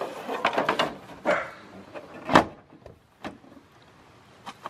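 Fiberglass side skirt knocking and scraping against a car's lower body as it is test-fitted, a quick run of knocks and clicks with the loudest knock about two seconds in, then a couple of lighter taps.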